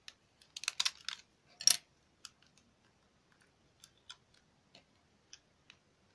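Clicks and light knocks from handling a small wooden-cased alarm clock: a quick cluster in the first couple of seconds, the loudest just under two seconds in, then a few scattered faint clicks.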